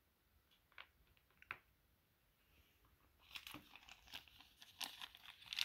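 Two light clicks, then from about three seconds in a thin clear plastic parts bag crinkling in irregular bursts as it is picked up and handled.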